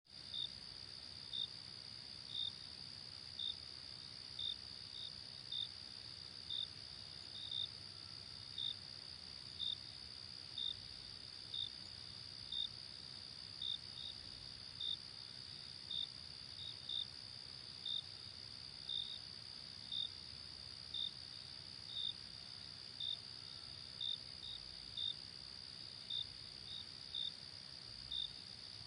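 Night crickets: a steady high trill, with short chirps about once a second over it, some coming in quick pairs.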